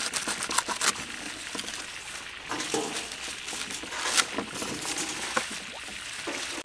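Cleaver chopping bundled green vegetable stalks on a round wooden chopping block: irregular sharp knocks of the blade through the stems into the wood, with leaves rustling as they are handled between strikes.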